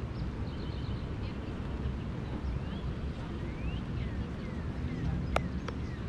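Small birds chirping with short rising and falling calls and a quick trill, over a steady low rumble of wind and ride noise on an open chairlift. A single sharp click comes near the end.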